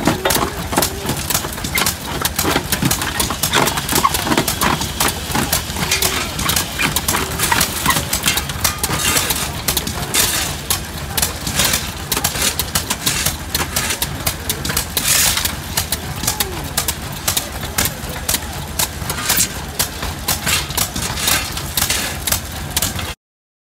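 Antique belt-driven stone crusher running, with a dense, continuous clatter of rock cracking and rattling through the jaws and chute over a steady low hum of the machinery, and a shovel scraping up crushed gravel.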